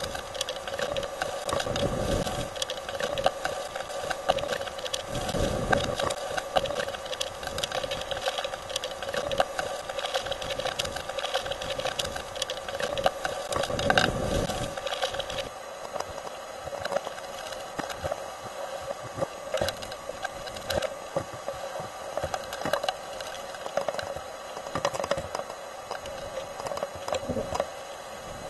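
Hurricane-force wind and rain heard from inside a vehicle: rain and spray pelting the windshield and body in a dense rattle over a steady hum, with heavier gusts buffeting the vehicle about two, five and fourteen seconds in. The hiss thins a little about halfway through.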